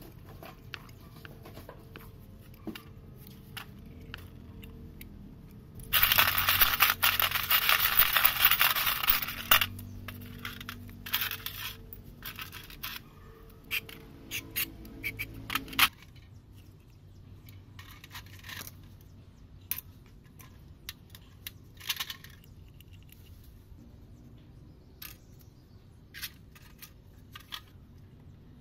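Small metal parts of a disassembled diesel fuel injection pump clinking, knocking and scraping in an aluminium tray as they are handled. A loud hiss lasts about three and a half seconds, a few seconds in, and the clicks then grow sparser.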